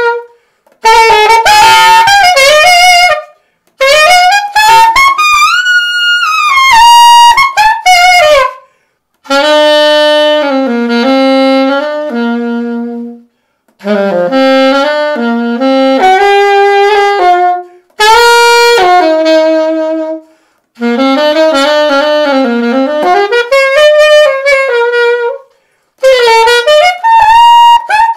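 Alto saxophone played solo, unaccompanied, through a Borb Oliver Pop Master mouthpiece with a Vandoren ZZ no. 3 reed: a bright, overtone-rich tone in a series of short melodic phrases with quick runs and swoops, broken by brief pauses for breath. The mouthpiece is a tenor mouthpiece fitted to the alto, a mismatch the player noticed only afterwards.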